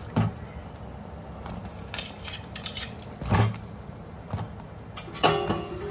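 Metal ladle knocking and clinking against a cooking pot a few times while handling brinjal pieces in the gravy, the loudest knock a little past halfway.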